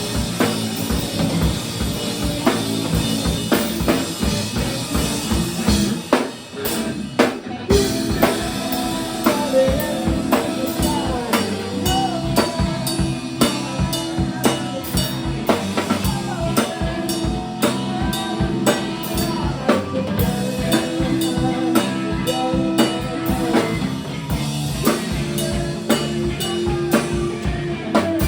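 Live punk rock band playing, with a loud drum kit driving a steady beat under sustained band chords, and a brief break in the playing about six seconds in.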